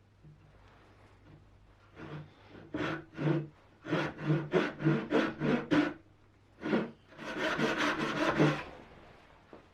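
A hand tool working wood in a run of short back-and-forth strokes, about three a second at their quickest, ending in a steadier stretch of rubbing lasting about a second and a half.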